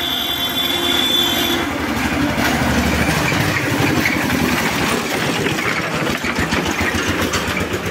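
Engine of a small green tractor-style utility vehicle chugging with a fast, even beat as it drives past close by, loudest around three seconds in. A steady high tone stops about a second and a half in.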